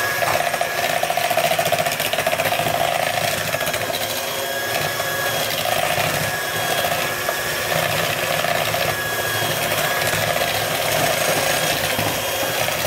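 Electric hand mixer running steadily, its beaters churning thick cream cheese and sugar batter in a bowl; a steady motor whine.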